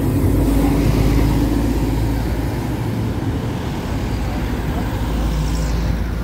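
Mercedes-Benz Citaro city bus driving past close by and pulling away along the street. Its engine is loudest with a low hum about a second in, then fades slightly as it moves off, with street traffic behind.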